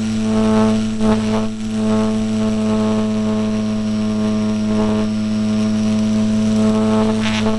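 Electric motor and propeller of an E-flite Apprentice RC plane droning at a steady pitch in flight, heard close up from on board, with a few short rushes of wind noise.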